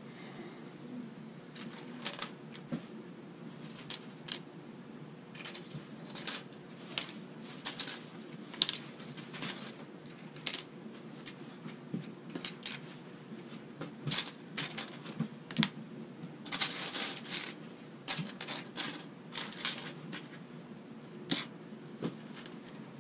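Small plastic LEGO pieces clicking and clattering as hands pick through a pile of loose bricks on a wooden table and press pieces onto the build: scattered sharp clicks, busiest a little past the middle.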